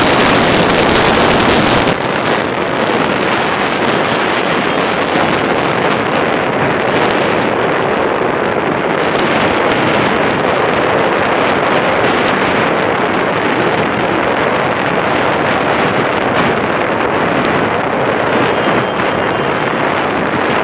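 Steady rushing wind noise with no engine or propeller tone in it. The highest part of the hiss drops away abruptly about two seconds in.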